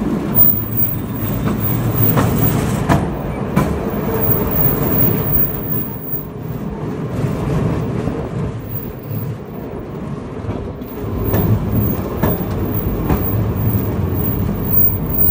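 Open-top tourist rail cart (the Amaterasu Railway "super cart") running along the track across a steel railway bridge: a steady low rumble of wheels and motor, with a few sharp clicks from the wheels on the rails.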